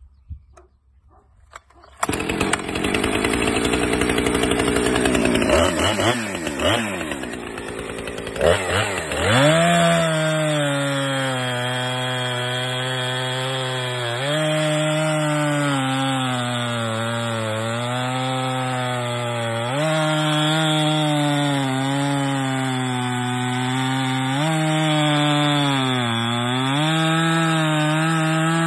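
Stock Husqvarna 455 Rancher two-stroke chainsaw with an 18-inch bar and .325 chain, cutting through a thick log at full throttle. It opens up about two seconds in. The engine note then sags under load and picks back up several times as the chain bites into the wood.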